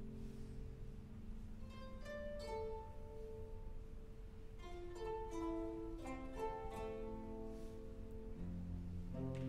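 Instrumental intro music: plucked, ringing notes over held low tones that fade after about a second and return near the end.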